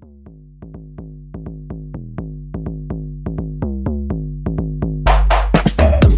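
Electronic music intro: a run of short plucked synth notes that grows steadily louder, with a full drum-machine beat coming in about five seconds in.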